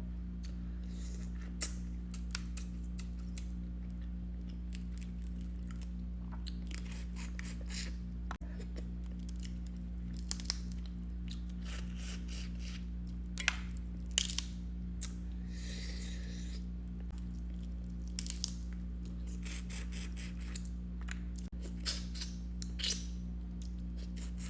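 Boiled blue crab being cracked, picked apart and eaten: scattered sharp cracks and crunches of shell and chewing, with a short rustling hiss about two-thirds through, over a steady low hum.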